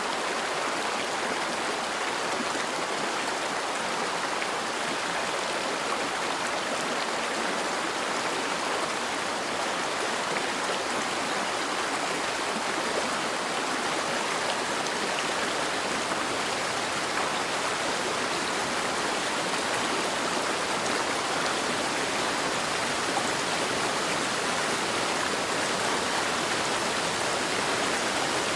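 Steady rain: a continuous, even hiss of heavy rainfall with no distinct drops or breaks.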